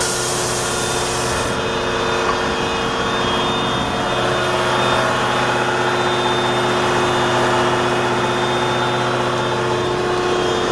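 The 1993 Wirtgen 1000VC milling machine's diesel engine idling steadily. A hiss over it cuts off suddenly about a second and a half in.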